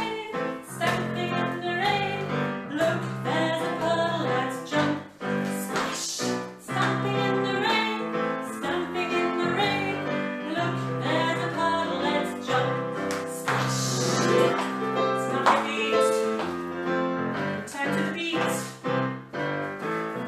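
A woman singing a children's action song over a digital piano accompaniment.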